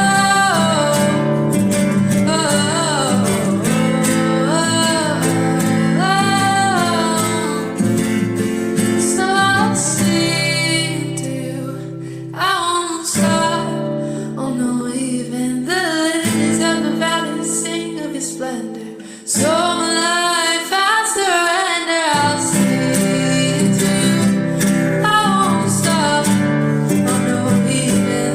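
A woman singing a gentle worship song with guitar accompaniment. The sound dips briefly about two-thirds of the way in, then the voice comes back in.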